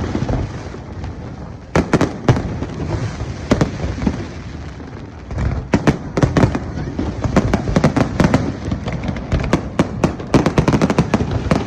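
Fireworks display going off: a continuous rumble of bursts with many sharp bangs, thinning out briefly about midway and then coming thick and fast again.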